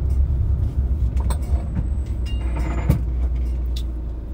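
Steady low rumble of a moving vehicle, with scattered light clicks and a single louder knock about three seconds in.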